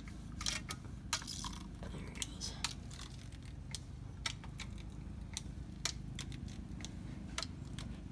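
Hand pump on a gear oil bottle being stroked to fill a rear differential, giving light irregular clicks about every half second to second over a steady low hum.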